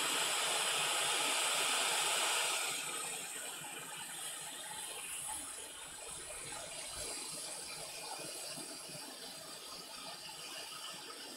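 Atten ST862D hot air rework station blowing air from its nozzle onto a circuit board: a steady hiss. It drops to a softer level about two and a half seconds in.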